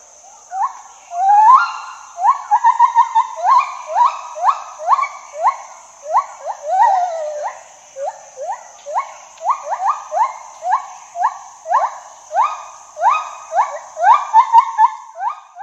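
Gibbon calling: a long series of short, loud whoops, each rising sharply in pitch, one or two a second, broken by a couple of quick trilled runs.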